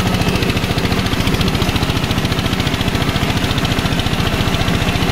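Eicher 241 tractor's single-cylinder air-cooled diesel engine running steadily under load while pulling a 14-disc harrow, heard close up from the driver's seat. It makes an even, rapid beat of firing pulses.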